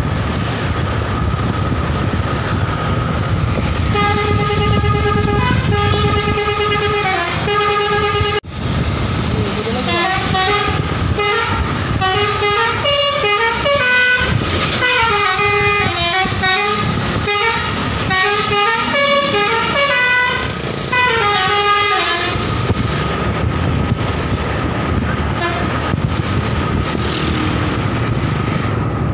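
A bus's Basuri musical telolet horn playing a tune over road and engine noise. It starts with a few held, repeated notes a few seconds in, then runs through quicker changing notes, and stops about seven seconds before the end.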